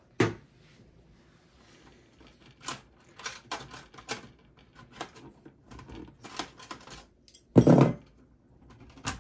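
Thin sheet-metal PCI slot covers being worked out of a desktop PC's steel case. There is a sharp click just after the start, then a run of light metallic clicks and rattles. The loudest clatter comes about three-quarters of the way in, and one more click comes near the end.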